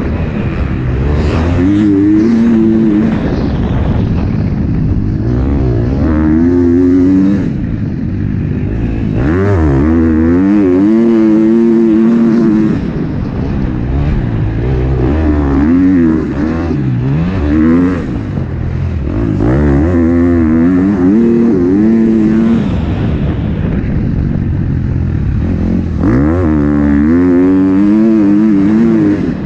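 The single-cylinder four-stroke engine of a 2021 KTM 250 SX-F dirt bike, ridden hard on a motocross track. The engine revs up on the throttle and drops off again many times over, its pitch climbing with each burst and falling as the throttle is shut.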